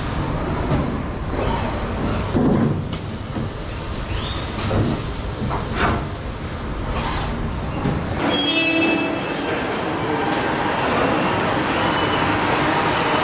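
Car body-shop machinery noise: industrial robot arms and clamping fixtures running on an assembly line, a steady mechanical din with a few sharp knocks and a short rising whine in the first half, settling into a steadier hiss later on.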